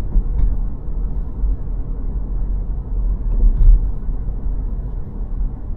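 Low road and tyre rumble heard inside the cabin of a Tesla electric car driving at about 25 mph, swelling briefly a little past halfway.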